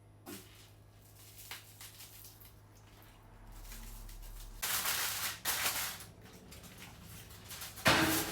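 Water poured into a pot of chicken and peppers on the stove, a noisy splash and hiss in two spells of about a second each, then a single sharp knock of cookware near the end.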